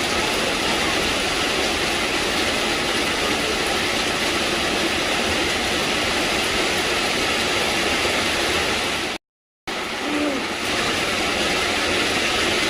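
Steady rain hiss, with a brief total dropout about nine seconds in before it resumes.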